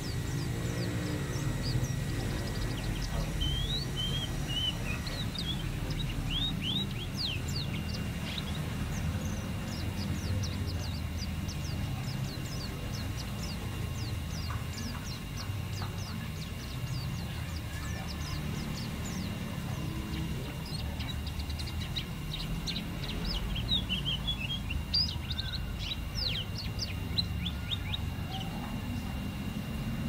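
White-eye (pleci) singing: rapid runs of thin, high chirps and twitters, with a short break about two-thirds of the way through, over a steady low background rumble.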